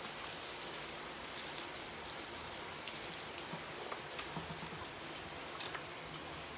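Eating fried chicken: tearing and chewing, with small mouth clicks and crackles scattered over a steady background hiss.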